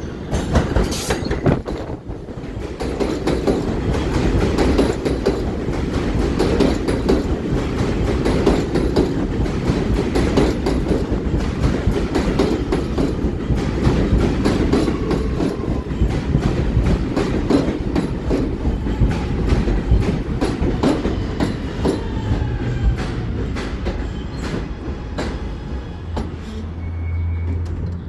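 R211A subway train pulling into the station: a steady rumble with wheels clattering over rail joints, and falling whines from the drive as it slows. It comes to a stop near the end, leaving a low steady hum.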